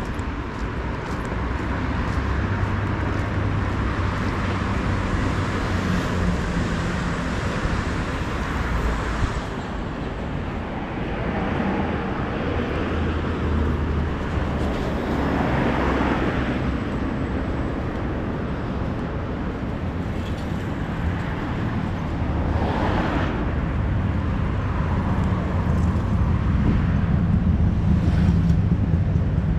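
Street traffic on a busy avenue: a steady wash of car engines and tyres, with the low hum of engines running close by. Two vehicles pass louder, about halfway through and again a few seconds later.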